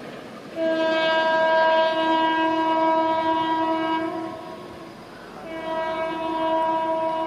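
Indian Railways locomotive air horn sounding two long blasts: the first starts about half a second in and lasts about four seconds, the second starts about a second later and is still going at the end.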